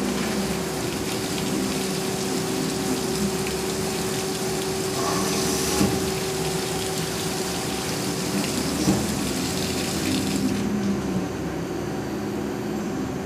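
Flood coolant spraying onto the workpiece inside a CyberTec UltraTurn UT250 CNC lathe, a steady watery hiss over the machine's steady hum. The spray cuts off about ten and a half seconds in, and the hum carries on.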